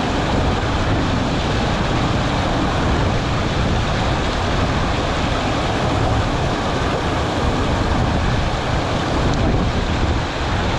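Mountain stream rushing steadily over rocks close by, an even, unbroken water noise.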